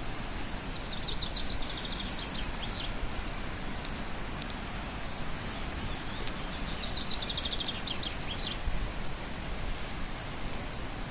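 Steady rush of flowing water, with a songbird singing two phrases of quick high notes, about a second in and again around seven seconds in.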